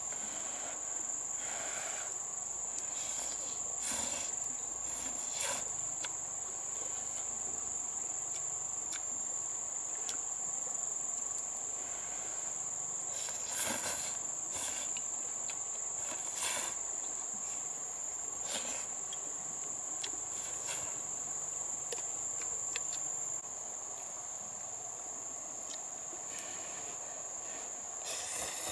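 Steady high-pitched insect chorus, with scattered brief taps and rustles over it.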